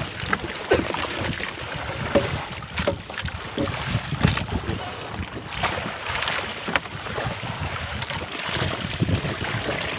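Rustling plastic and irregular knocks and clicks as a plastic-lined net full of fresh round scad is tipped into a plastic cooler, over wind noise on the microphone and open water around a small boat.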